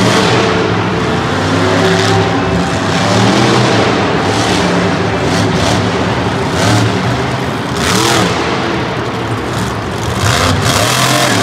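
Monster truck engine revving as the truck drives and turns on the dirt, with the revs climbing about eight seconds in and again near the end.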